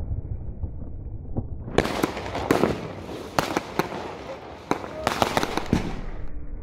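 Fireworks bursting in the air: a rapid run of sharp bangs and crackles lasting about four seconds, starting about two seconds in.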